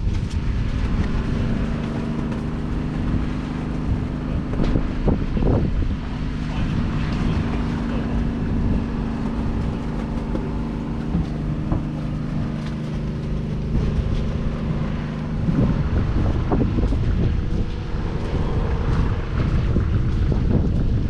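Diesel tractor engine idling steadily, with wind buffeting the microphone. The engine's steady tone changes and blurs about fifteen seconds in.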